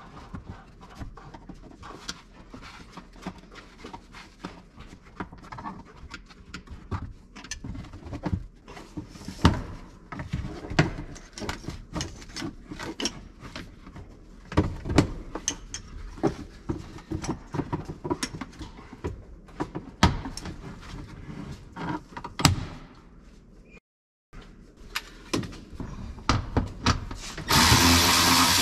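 A flathead screwdriver prying and knocking at hard plastic clips and panel edges, giving irregular sharp clicks and knocks. About a second before the end, a power ratchet starts running steadily and loudly on a 7/16-inch or 10 mm bolt.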